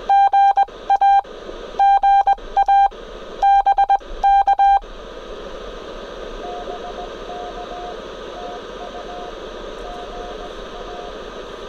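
Morse code sidetone: a loud, steady high tone keyed in quick dots and dashes, in several groups, as a CW message is sent on a ham radio transceiver. It stops about five seconds in. The receiver's hiss follows, with a faint Morse reply from the other station just audible in the noise, the volume kept low.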